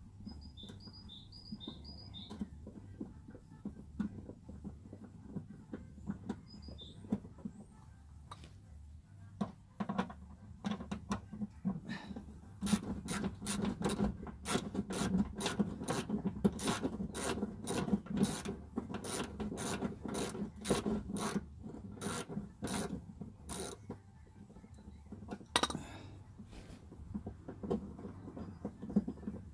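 A screwdriver turning a screw into the steel floor pan of a 1967 Mustang from underneath: metal rubbing and rasping, with a run of sharp clicks about twice a second from about twelve seconds in for some twelve seconds.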